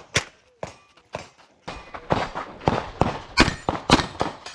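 Handgun fired in a string of shots during a USPSA stage run, about seven sharp reports spaced unevenly from a third of a second to a second apart, with fainter shots in between.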